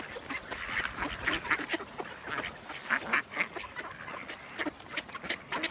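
A crowded flock of mallards quacking while feeding: many short calls overlapping in an unbroken, irregular chatter.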